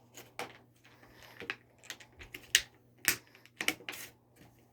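Irregular sharp clicks and taps of hard plastic parts being handled: a figure's scythe accessory and display stand being worked free and fitted.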